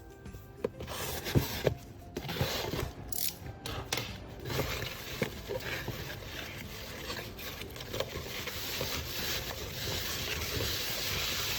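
Paper being handled and rubbed: a continuous rustling scrape, with a few light clicks in the first couple of seconds.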